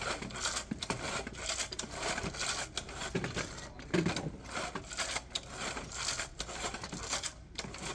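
Small engine being turned over for a compression test: a run of irregular scraping and clattering noises with no engine firing.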